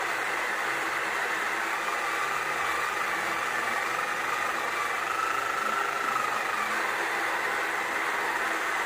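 Small electric motor of a mini pottery wheel running steadily, with a faint whine that wavers slightly in pitch.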